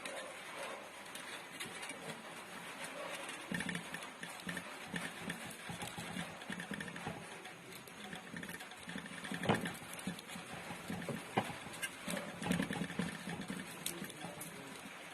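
Enamelled copper wire being handled and pressed into a grinder motor's stator slots: irregular rustling with scattered clicks and ticks, a few sharper ones past the middle.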